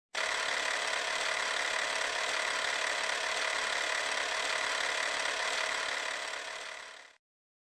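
Steady mechanical noise added as an intro sound effect to a logo animation. It fades over the last second and cuts off about seven seconds in.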